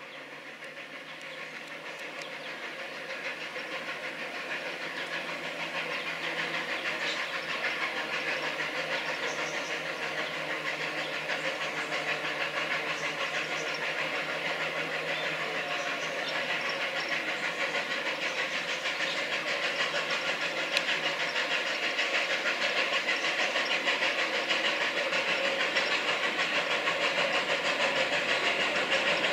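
Narrow-gauge steam tank locomotive, an NA-class 2-6-2T, working toward the listener with fast, even exhaust chuffs and steam hissing from its cylinder drain cocks. The sound grows steadily louder as it approaches.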